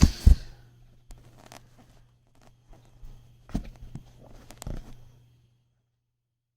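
Handling noise: a few knocks and rustles, with a low steady hum underneath, cutting to dead silence about five seconds in.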